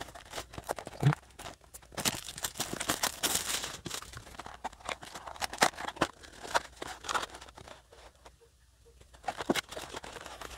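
Cardboard booster-pack box being torn and pried open by hand, with irregular bursts of tearing, scraping and crinkling of cardboard and foil packs, and a short lull near the end.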